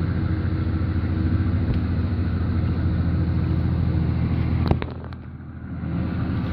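Boat engine running with a steady low rumble as a crab or lobster boat passes out through the harbor channel. A few sharp knocks come about three-quarters of the way through, and the rumble drops away for a moment after them.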